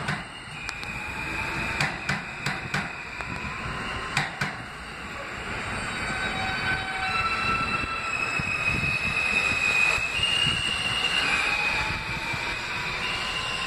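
R160 subway train pulling out of the station: its electric traction motors whine in tones that step higher in pitch and grow louder as it accelerates. Several sharp clicks sound in the first four seconds or so.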